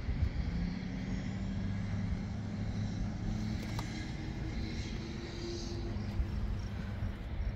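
Low, steady engine hum of a vehicle over outdoor background noise.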